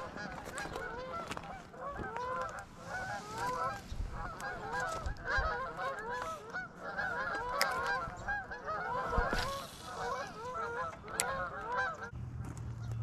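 A flock of birds calling over one another in a dense chorus of short, rising-and-falling calls. The calls stop about a second before the end.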